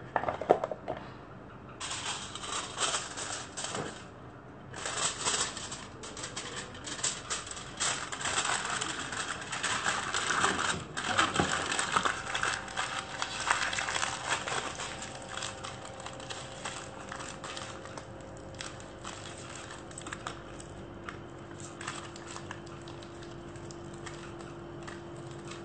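Aluminium foil crinkling and rustling as it is handled and pressed over a hookah bowl: a dense run of small crackles that thins out over the second half.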